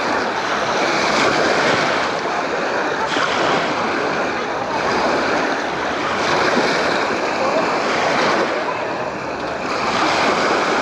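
Sea waves washing onto the beach: a steady hiss of surf that rises and eases every few seconds.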